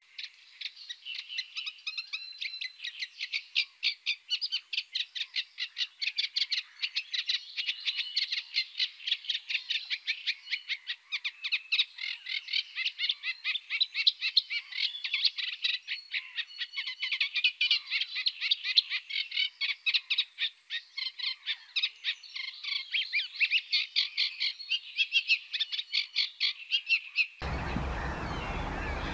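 A dense chorus of rapid, repeated calls from many animals at once, several calls a second, overlapping and pulsing in loudness. Near the end it cuts abruptly to a steady rushing background noise.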